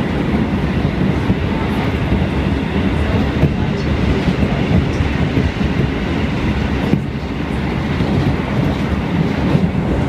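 Passenger train running along the track, heard from inside the carriage: a steady low rumble of wheels on rails, dipping briefly about seven seconds in.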